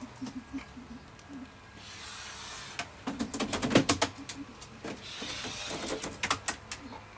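Soft, low clucks of a Hume's pheasant, about three a second, in the first second and a half. Then rustling, and two runs of rapid sharp clicks and rattles about three and six seconds in, the loudest near the four-second mark.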